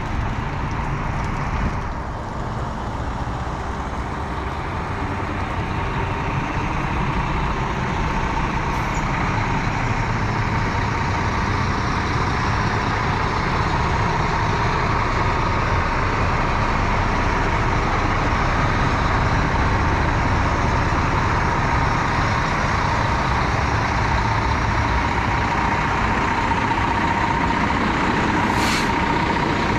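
2008 International 7600 dump truck's diesel engine running, with a steady whine over it. The sound grows louder over the first dozen seconds or so, then holds steady.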